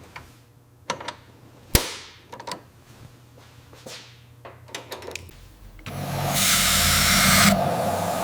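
Several sharp metal taps and knocks, one ringing briefly, then a power tool starts a little past the halfway mark and runs with a loud, steady whir.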